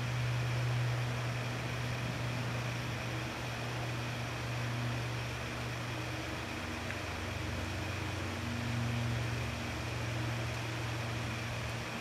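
A steady low mechanical hum over a constant hiss, swelling slightly twice.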